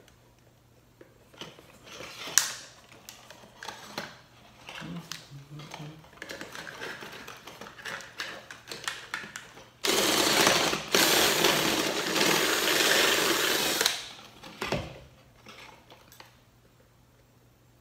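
Small clicks and knocks of parts being handled, then a loud steady mechanical running noise for about four seconds that stops abruptly.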